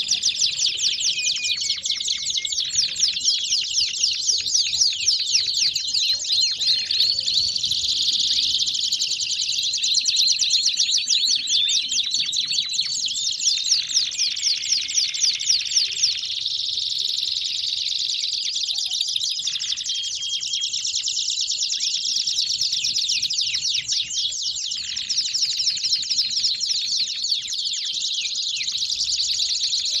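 Several domestic canaries singing at once: a dense, unbroken chorus of fast high-pitched trills and rolling phrases, with the odd short held whistle.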